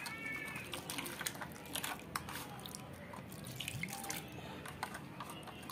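A hand swishing and squeezing crushed raw potato in water in a steel bowl, rinsing it: small irregular splashes and drips.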